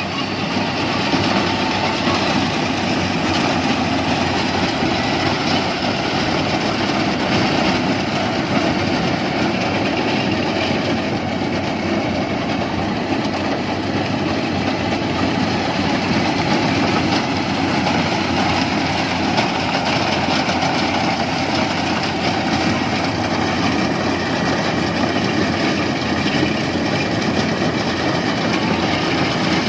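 Yanmar rice combine harvester running steadily, its engine and machinery making one unbroken mechanical din.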